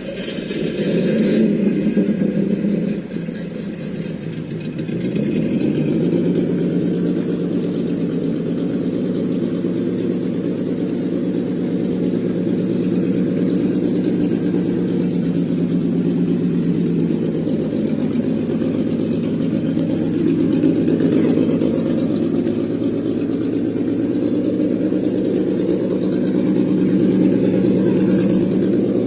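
Simulated engine sound from an ESS-Dual sound module in a Traxxas TRX-4 RC crawler, played through its small speaker: the engine starts up, gets louder around five seconds in, then runs steadily.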